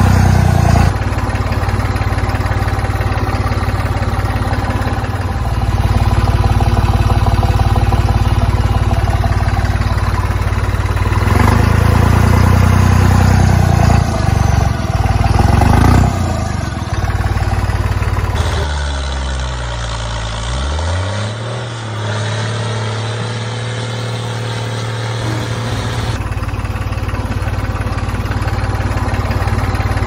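A motor running steadily with a low hum. About two-thirds of the way through, its pitch drops sharply and climbs back, then it runs on steadily.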